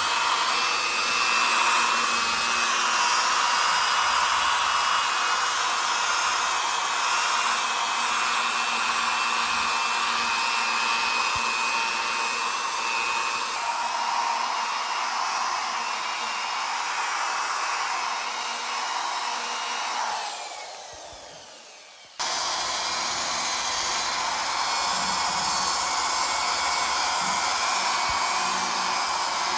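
Handheld electric sanding machine running steadily with sandpaper, a continuous whir. It fades out about twenty seconds in and comes back abruptly two seconds later.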